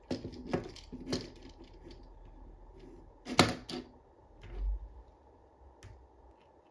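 Hobby knife working on a flat ribbon cable on a tabletop, splitting its wires apart: a few sharp clicks and scrapes of blade and handling, the loudest about three and a half seconds in, then a dull bump about a second later.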